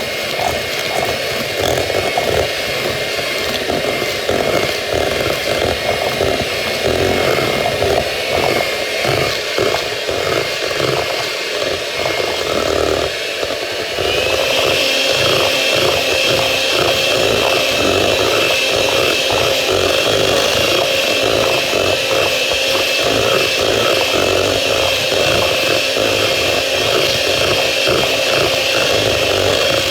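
Electric hand mixer beating deviled-egg yolk filling smooth: a steady motor whine that steps up to a higher pitch and gets a little louder about halfway through.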